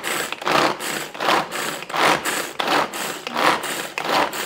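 Hand-operated kitchen food chopper worked in quick repeated strokes, its blades whirring and rattling through food about once every 0.7 seconds.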